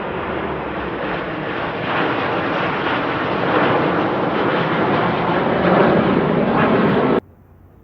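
Jet aircraft flying over, a loud rushing engine noise that grows steadily louder and then cuts off abruptly about seven seconds in.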